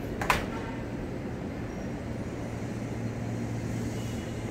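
KRL Commuter Line electric train pulling out of the station: one short sharp clack or hiss about a third of a second in, then a steady low hum as the train gets under way.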